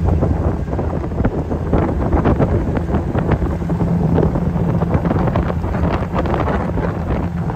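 Wind buffeting the microphone on an open MG TD roadster under way, over the steady drone of the car's four-cylinder engine.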